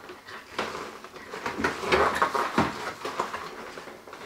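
A cardboard toy box being handled and lifted off a glass tabletop: irregular rustling and scraping with a few sharp knocks, busiest about two seconds in.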